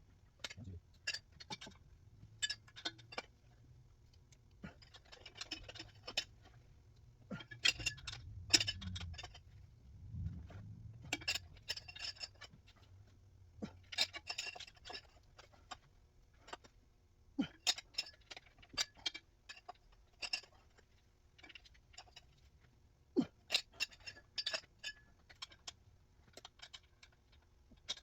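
Hand tools and bolts working on metal: faint, irregular metallic clicks, clinks and light scrapes, some in quick runs of ticks, over a low steady hum.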